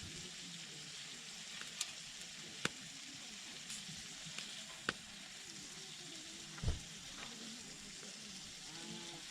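Food sizzling steadily in a hot pan or on a griddle, with a few sharp clicks and a dull knock near the middle.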